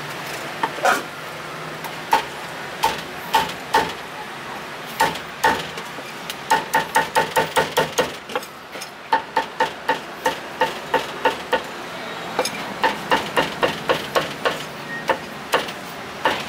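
Steel meat cleaver chopping roasted pork and duck on a thick round wooden chopping block. Sharp chops come singly at first, then in quick runs of about four to five a second.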